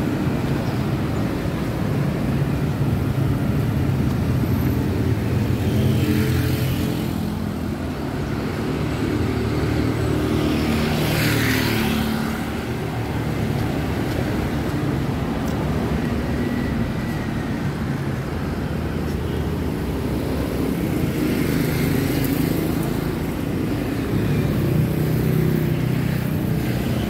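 Street traffic: cars and motorcycles running past on the road alongside, a steady engine hum and tyre noise, with louder vehicles going by several times, the loudest near the middle.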